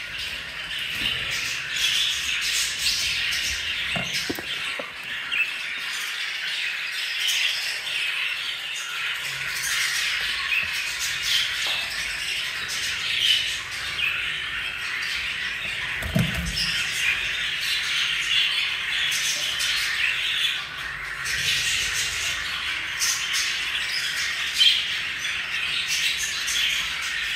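Budgerigars chattering and chirping without a break, a dense warbling mix of short calls and squawks, with a couple of brief soft low thumps.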